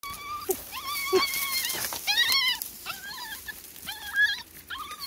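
Puppies whining in high, wavering cries, again and again and sometimes overlapping, with a few short lower yips.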